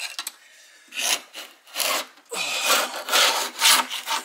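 Hand scraping and rubbing on the pressboard floor of an under-sink cabinet as it is cleaned up: a series of uneven strokes, longer and louder from about two seconds in.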